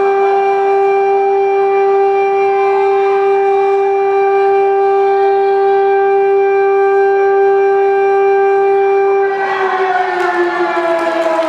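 A siren holding one steady pitch, then winding down in a falling glide near the end.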